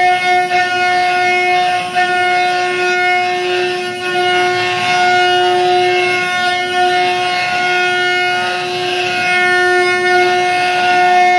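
CNC router spindle running with a steady high whine while the bit cuts into wood, the cutting noise swelling and easing as the tool moves.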